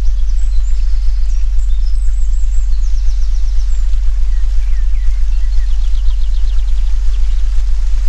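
A loud, steady, very deep electronic tone, pulsing slightly in loudness a few times a second, with faint songbird chirps and quick trills of a forest soundscape behind it.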